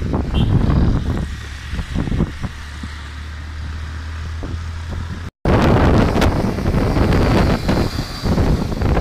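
Wind buffeting the microphone of a moving vehicle, over a steady low engine hum. About five seconds in the sound cuts out briefly and comes back as louder wind rumble.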